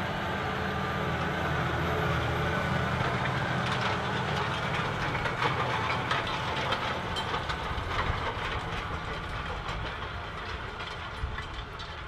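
Claas tractor's diesel engine pulling a Horsch cultivator through dry soil: a steady low engine drone under the rattle and ticking of the tines and frame. From about four seconds in, the rattle becomes denser, and it eases off slightly near the end.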